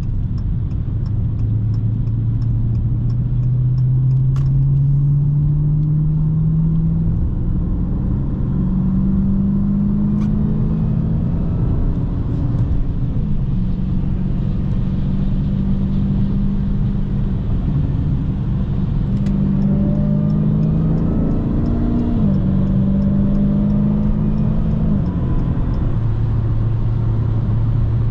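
Dodge Hellcat's supercharged 6.2-litre V8 pulling through the gears. The engine note climbs steadily for about seven seconds, then drops in pitch as it shifts. It climbs again, dropping about thirteen and twenty-five seconds in, and settles to a low steady drone near the end.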